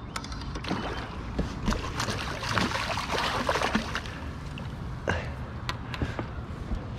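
Irregular splashing and sloshing of water as a hooked flathead thrashes at the surface beside a kayak, with a landing net pushed into the water under it. A few sharper splashes come about five seconds in.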